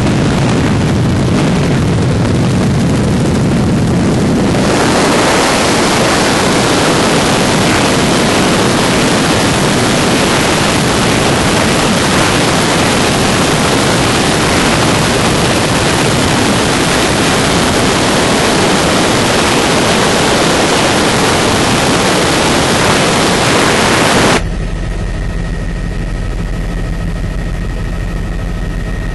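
Helicopter in flight heard from the cabin: a loud, steady rush of noise. About 24 seconds in it changes abruptly to a quieter engine drone with steady high tones.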